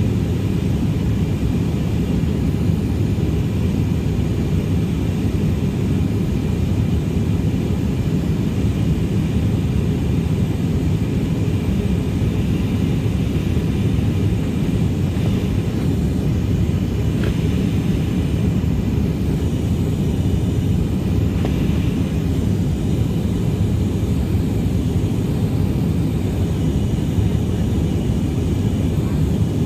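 Steady in-cabin roar of an Airbus A319 in flight, heard from a seat behind the wing: an even, low rumble of its IAE V2500 turbofan engines and the airflow around the fuselage.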